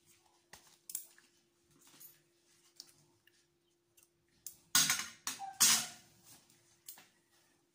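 Metal surgical instruments clicking as they are handled, with two louder short scraping bursts about five seconds in, over a faint steady hum.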